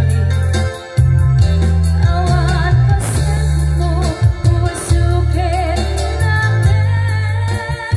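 Live band music: a woman singing an Ilocano song into a microphone, with vibrato, over electronic keyboards playing a heavy bass line and a steady beat. The backing drops out briefly about a second in.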